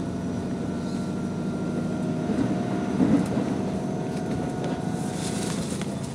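Diesel railcar running along the line, heard from inside the carriage: a steady engine and running hum, with a louder rumble about three seconds in.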